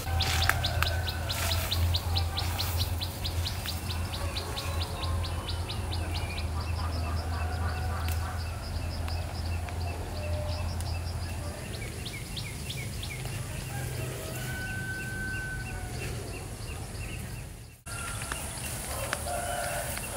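Birds singing: one bird repeats a fast run of high chirps, several a second, for the first few seconds, while other birds call now and then, including a short whistle later on. A low steady hum sits underneath until about halfway, then stops, and the sound drops out briefly near the end.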